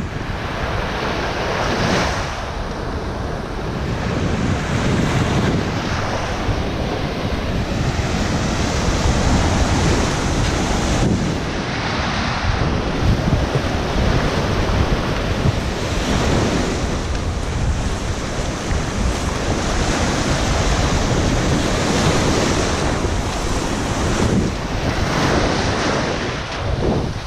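Low surf breaking and washing up a sandy shore, the wash swelling every few seconds, with wind buffeting the microphone as a low rumble underneath.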